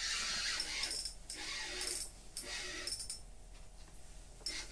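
Rustling and light metallic clinking from handling ice-fishing rods and reels, in bursts about once a second.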